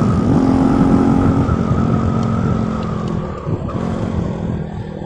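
Motorcycle engine running while riding, its steady note slowly getting quieter and a little lower in pitch.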